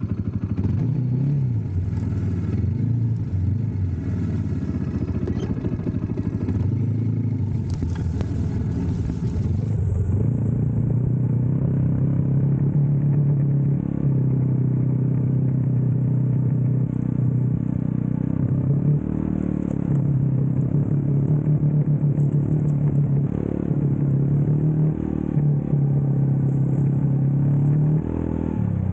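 Kymco Maxxer 300 ATV's single-cylinder engine running under way, its pitch rising and falling through the first ten seconds or so, then holding steadier with short dips in throttle. A few knocks and rattles from the machine come through in the first part.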